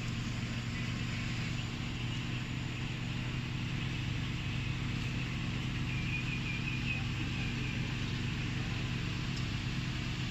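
Car engine idling steadily, an even low hum with no revving.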